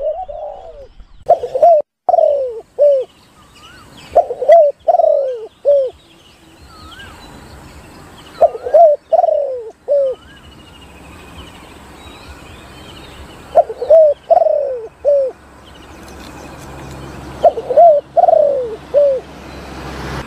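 Spotted dove cooing: five loud phrases of three or four short notes, about every four seconds. Faint chirps of small birds come in between.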